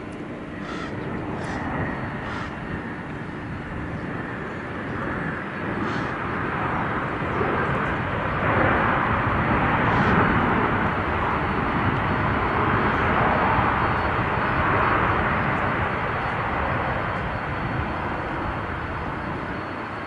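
Boeing 777-300ER landing: a rushing jet-engine noise swells a few seconds after touchdown, is loudest through the middle as the engines spool up on the rollout, then eases off. A few short bird calls come through near the start.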